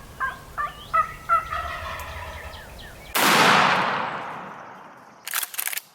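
Wild turkey calling several times, then a single loud shotgun blast about three seconds in that rings out and fades over about two seconds. A brief rapid fluttering follows near the end.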